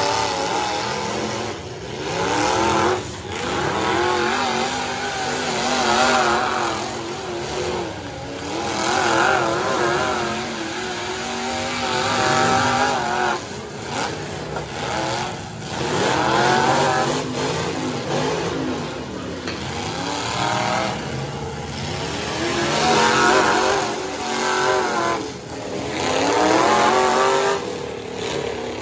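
Several demolition derby pickup trucks' engines revving hard, rising and falling in pitch over and over, with a few sharp bangs.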